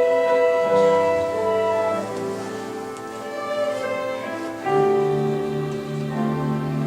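Slow orchestral music: strings and piano holding long notes in a gentle melody. A louder, fuller chord with low notes comes in about two-thirds of the way through.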